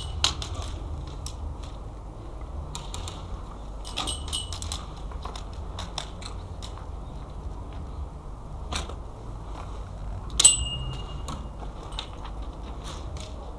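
Scattered sharp clicks and snaps of airsoft gunfire and BB hits, with one loud snap about ten and a half seconds in that leaves a brief high metallic ring, over a steady low rumble.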